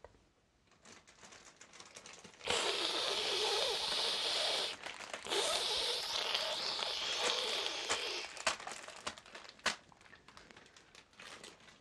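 Crinkling, rustling noise in two stretches, one of about two seconds and one of about three, followed by a few scattered light clicks.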